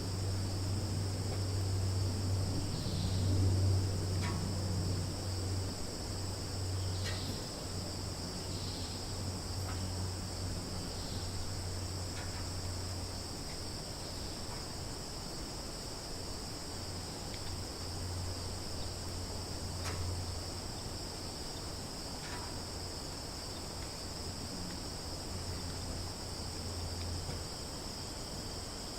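Summer forest ambience: a steady, high-pitched chorus of crickets and other insects, with a low steady rumble underneath and a few brief faint calls now and then.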